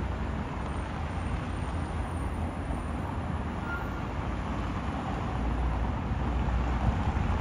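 Road traffic on a city street: a steady rumble of passing cars that grows a little louder near the end.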